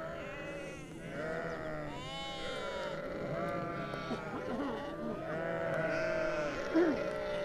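A flock of sheep bleating, many calls overlapping without a break.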